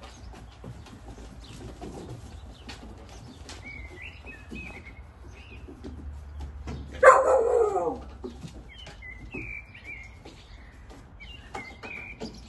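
Small birds chirping on and off, with one loud call lasting about a second, about halfway through, falling steeply in pitch, likely from a dog.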